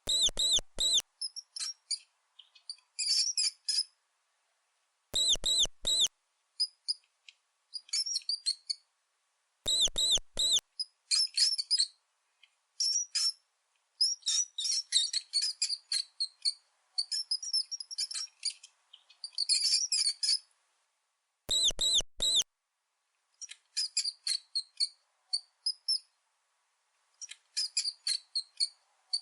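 Mice squeaking: rapid runs of very high-pitched squeaks and chirps in irregular bursts. A group of three louder, arching squeaks comes back four times.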